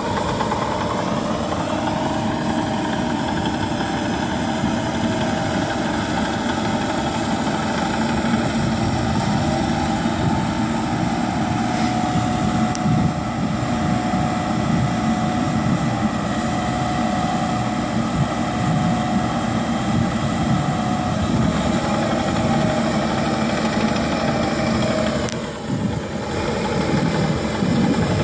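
Bobcat mini excavator's diesel engine running steadily while it drives a hydraulic flail mower head on its arm, with a brief dip in level near the end.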